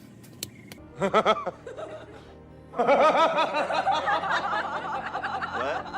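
Background music with a laughing voice: a short burst about a second in, then longer, wavering laughter from about three seconds in.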